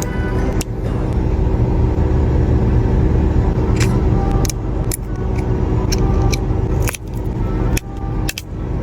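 Steady low rumble of a car cabin with scattered small sharp clicks and taps, like small metal tools and parts being handled.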